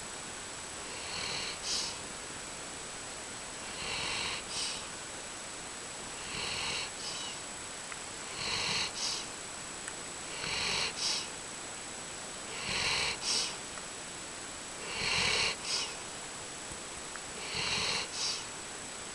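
Snoring in sleep: about eight even breaths, one every two and a half seconds or so, each a longer drawn breath followed by a short, sharper one.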